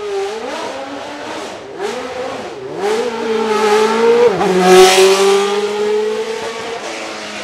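Leyton House March-Judd Formula One car's naturally aspirated 3.5-litre Judd V8 at high revs. The revs rise and fall several times, drop sharply about four seconds in at a gearchange, then climb steadily as the car passes. It is loudest just before five seconds in and fades afterwards.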